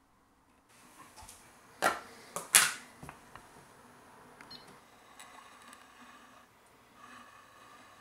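Hard plastic clicks and knocks of a plastic tub being handled on an electronic balance: three sharp clacks about two seconds in, the last the loudest, then lighter tapping and ticking.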